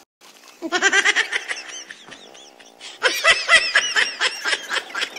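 Men laughing hard in rapid, pitched bursts: one bout about a second in and a louder one about three seconds in, after a brief silence at the very start.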